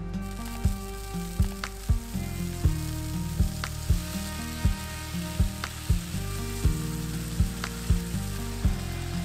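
Marinated chicken thighs sizzling and frying in hot oil in a cast-iron skillet as they are laid in with tongs. The sizzle starts just as the first piece goes in. Background music with a steady beat plays throughout.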